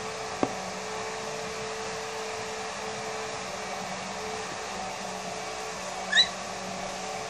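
Kitchen blender motor running steadily in the background with a constant hum. A single light tap comes about half a second in, and a brief high squeak about six seconds in.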